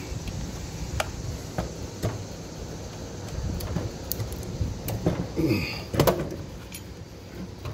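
Metal parts of a generator's alternator being handled: scattered clicks and knocks, then a louder stretch of scraping and rubbing about five to six seconds in, as the stator windings are slid back into the housing.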